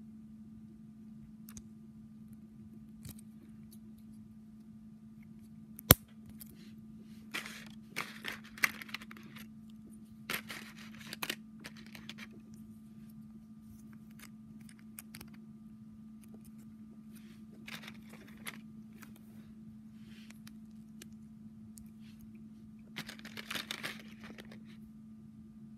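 Plastic LEGO minifigure parts being handled and pressed together: one sharp click about six seconds in, then several short bursts of plastic rustling and crinkling. A steady low hum sits underneath.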